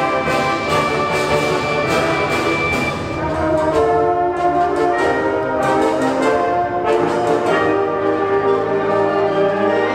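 Middle school symphonic band playing slow, sustained chords, brass and woodwinds together. The sound eases slightly about three seconds in, then carries on in long held chords.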